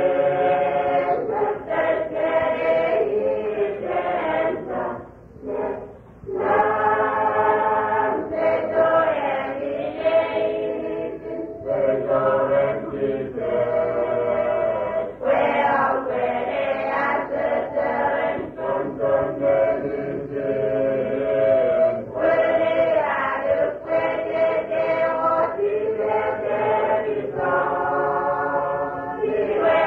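A choir of voices singing together in long, held chant-like phrases, with a brief pause about six seconds in. It has the narrow, muffled sound of an old recording.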